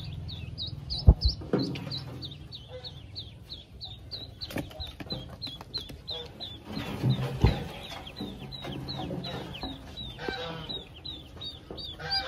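Newly hatched Pekin ducklings peeping non-stop, a rapid string of short, high chirps about three to four a second. A few dull thumps from handling come through, the loudest about a second in and another past halfway.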